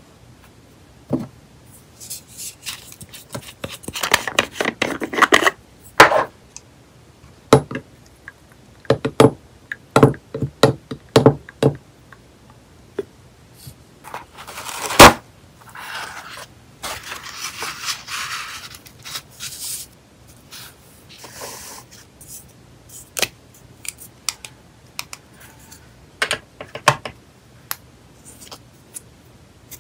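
Hands handling nail-art supplies on a tabletop: small clicks and taps of glass, plastic and a brush being set down. Bunches of quick clicks, one sharp knock about halfway through, then a few seconds of soft paper-like rustling.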